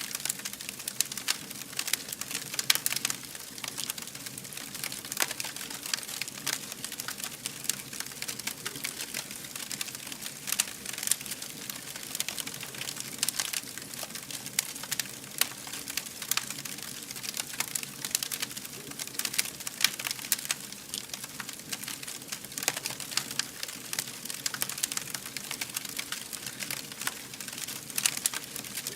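Wood fire burning with dense, irregular crackling over a steady hiss, a few louder pops standing out among the small snaps.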